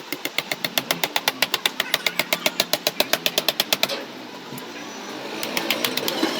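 Rapid, even mechanical clicking, about ten clicks a second, which stops about four seconds in and gives way to a steady, rising mechanical noise.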